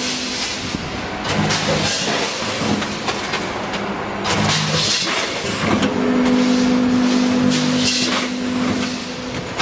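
Vertical form-fill-seal packing machine running as it forms, fills and seals snack bags: a steady hum with lower tones that come and go and repeated hissy surges.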